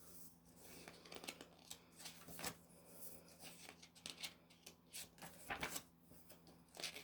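Faint paper rustles and soft clicks as the pages of a CD lyrics booklet are leafed through by hand, with a few sharper page flicks.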